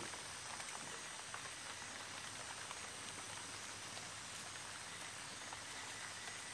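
Rain falling steadily: an even hiss with a few faint scattered ticks of drops.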